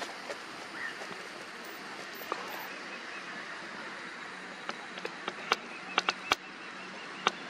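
Outdoor ambience: a steady hiss, with a scatter of sharp clicks and ticks, most of them in the second half.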